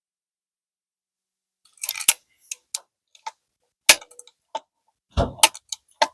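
A string of sharp metallic clicks and knocks from a Civil War breech-loading carbine being handled and loaded, with a heavier thump about five seconds in.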